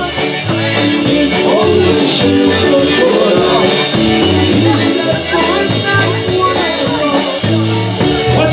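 Live band music: guitar, drum kit and accordion playing a steady beat, with a man singing into the microphone.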